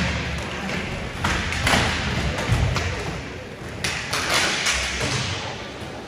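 Hockey play in a rink: a string of thuds and sharp knocks at uneven intervals, with no voices over them.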